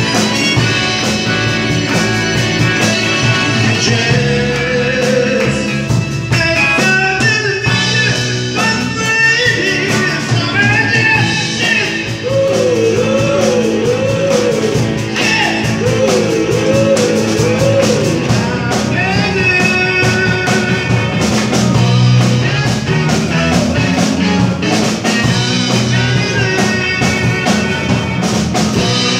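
A live rock band playing: electric guitars, drum kit and keyboard, with a man singing lead.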